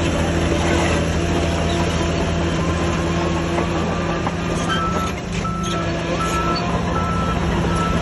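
Heavy diesel earthmoving machinery running steadily, with a reversing alarm starting to beep about halfway through, a high beep repeating about every two-thirds of a second.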